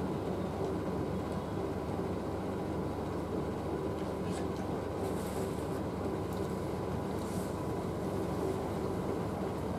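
Steady low rumble with a faint steady hum, and a few faint light clicks about four to seven seconds in.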